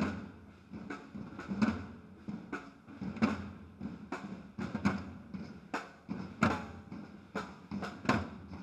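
Parade side drums beating a marching cadence, sharp strokes about twice a second with louder accents every so often.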